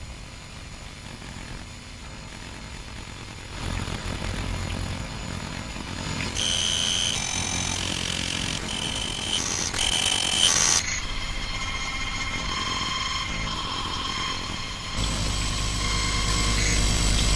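A low rumbling drone that grows louder, first about three and a half seconds in and again near the end, with short high beeping tones coming and going in the middle and steadier tones after them.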